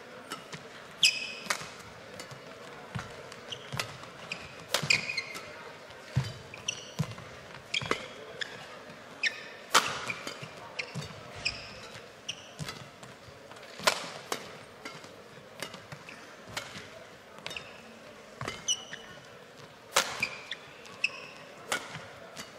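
Badminton rally: racket strings striking the shuttlecock in sharp, irregular hits about every one to two seconds, with court shoes squeaking on the floor between strokes.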